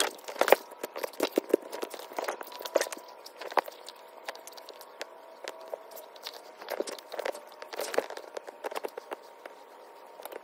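Irregular rustling and soft taps from hands working through a doll's curly hair and the blanket beneath it, in uneven clusters with brief lulls.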